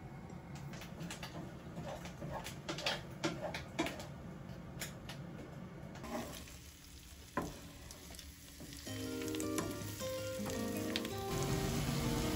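Irregular crackles and pops from cooking fat in a frying pan, then music comes in about nine seconds in. Near the end, chopped onions sizzle in oil in the pan under the music.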